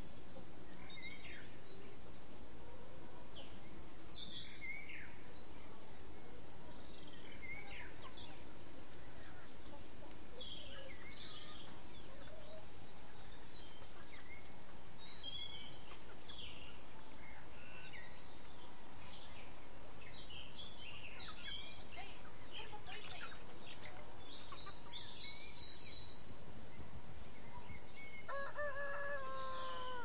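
Small birds chirping and twittering on and off over a steady outdoor background hiss. A rooster crows once near the end.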